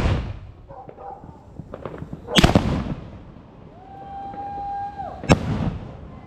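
Fireworks going off: a loud bang about two and a half seconds in and another sharp bang near the end, with a few small cracks before the first. Between the two bangs a steady tone holds for about a second.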